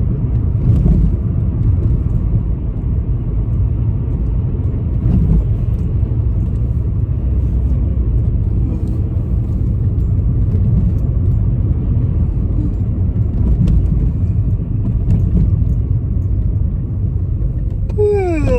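Steady low road and engine rumble inside a moving car's cabin. In the last moment a person's voice begins a falling, drawn-out yawn.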